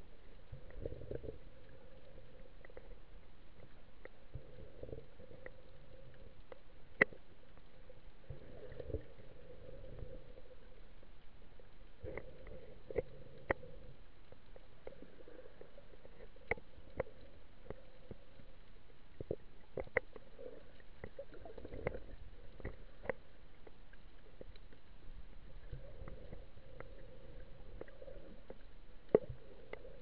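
Muffled underwater sound of sea water heard through a submerged camera: a low, swelling rumble of water movement with scattered sharp clicks at irregular intervals.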